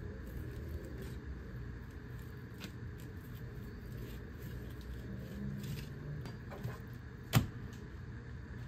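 A knife working catfish on a plastic cutting board: faint scrapes and light taps over a steady low hum, with one sharp tap a little after seven seconds in.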